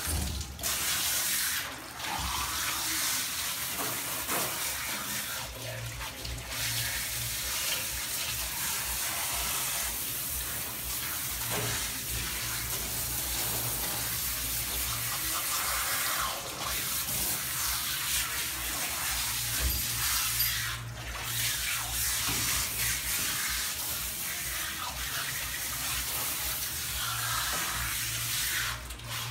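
Water spraying from a hand-held pistol-grip sprayer onto a wet dog's coat in a stainless steel grooming tub, a steady hiss that stops briefly a few times.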